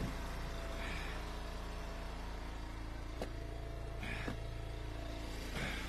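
Small gasoline engine of an Eastonmade hydraulic log splitter running steadily, with a couple of faint short knocks a little past the middle.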